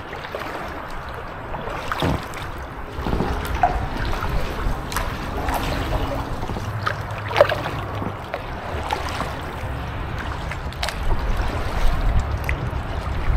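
Kayak paddle strokes in calm canal water: the blades dipping and pulling, with small splashes and water dripping and trickling off the paddle, over a low steady rumble.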